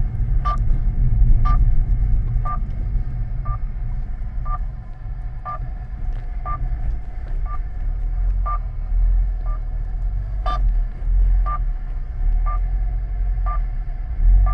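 A radio signal finder beeping short tones about once a second, over the low rumble of a car driving slowly along a rough lane.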